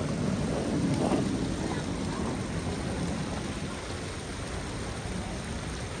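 Steady splashing of small fountain jets in a pond. A low rumble swells and fades about a second in.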